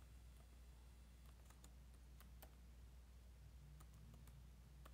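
Near silence: a low steady hum with several faint, scattered clicks.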